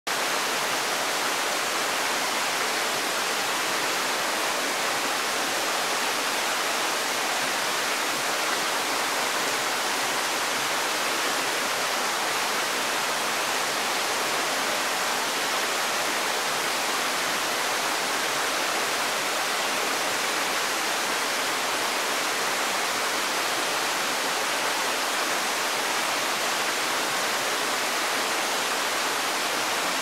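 Tsukimachi Falls, a waterfall pouring down a rock face into its pool, giving an even, unbroken rush of falling water.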